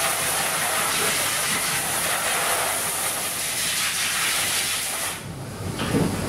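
Steady, loud, airy hiss that cuts off about five seconds in, followed by a short, lower knock near the end.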